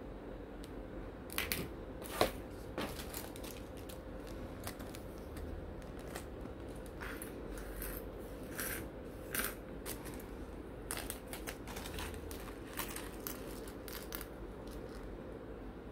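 Small plastic model-kit parts clicking and tapping as they are handled, fitted together and set down on a cutting mat, with a light crinkle of a plastic parts bag. The clicks are scattered and irregular, the sharpest about two seconds in, over a steady background hum.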